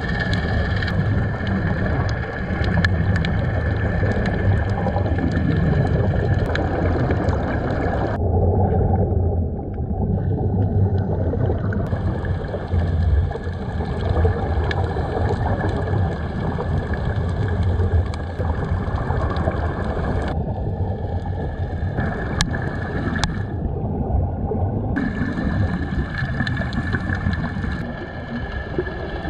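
Muffled underwater noise from a camera beneath the surface: a steady low rumble with air bubbling out of Sea Trek diving helmets. The sound turns duller twice, for a few seconds each time.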